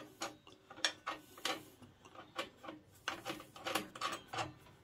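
Light, irregular metal clicks and ticks as a table saw's arbor nut is spun onto the threaded arbor by hand, against the flanged washer and the carbide-tipped blade, the clicks coming a little faster in the second half.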